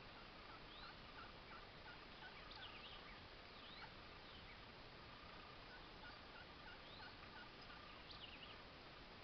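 Faint, distant wild turkey gobbling, with small birds chirping here and there over a quiet hiss.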